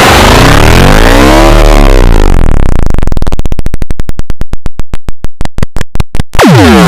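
Loud synthesized sound effect: a stack of tones sweeps up and back down in pitch, then breaks into a fast pulsing that slows to separate beats about two a second. Near the end a new swoop drops in pitch and rises again.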